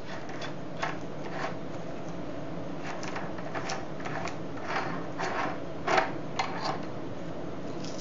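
Outer rose of a BEST knob lockset being unscrewed by hand from its threaded hub: a scatter of light, irregular clicks and scrapes, the loudest about six seconds in.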